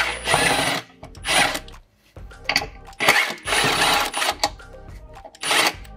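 Cordless drill/driver running in several short bursts, backing the screws out of a screen door latch.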